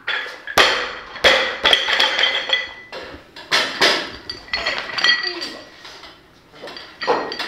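Loaded Olympic barbell with bumper plates clanking on the lifting platform: two heavy strikes about half a second and a second in, each followed by the metal bar and plates ringing, then more clanks and rattles of a barbell being lifted.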